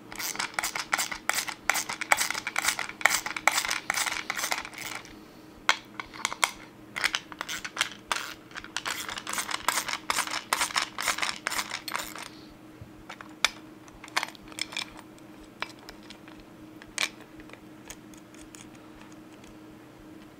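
A small 8 mm wrench clicking quickly as it undoes the clutch-cover nuts on a Stihl 500i chainsaw. This is followed by scattered light metal clicks and clinks as the nuts and the steel bucking spike are handled, thinning out to a few single clicks after about twelve seconds.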